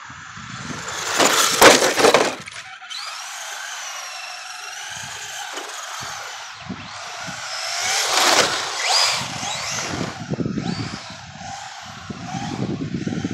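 Radio-controlled Slash short-course trucks drifting on asphalt: electric motor and drivetrain whine rising and falling with the throttle, over tyres scrubbing and sliding on the blacktop. About a second in there is a loud, harsh scraping burst, the loudest sound here.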